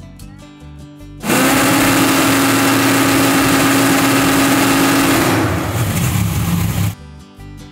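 Fox-body Mustang drag car's naturally aspirated V8 held at a steady high rev against the trans brake, about 3750 RPM, then dropping lower and rougher for a second or so as the bump button pulses the trans brake at 80% duty cycle. That duty cycle is too high: the car barely moves. The engine sound cuts off suddenly near the end.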